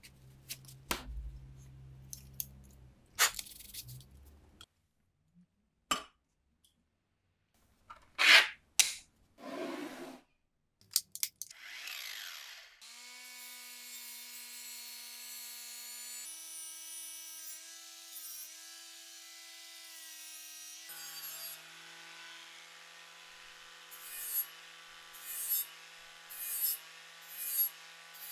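Handling knocks and clatter, then an angle grinder spins up and runs with a steady whine, its pitch shifting a couple of times. Near the end its abrasive disc is pressed against the steel bayonet blade in short grinding passes, about one a second.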